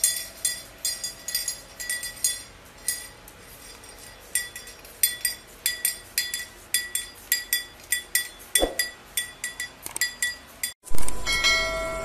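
Small metal hand bell ringing over and over at an uneven pace as a white cockatoo carries it in its beak, about two or three rings a second. Near the end a different sound starts suddenly and loudly.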